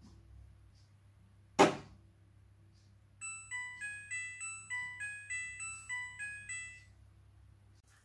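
Midea front-loading washing machine's door lock releasing with one sharp click. A couple of seconds later comes its electronic end-of-cycle tune, about a dozen beeping notes over some three and a half seconds, signalling that the wash has finished and the machine is switching off.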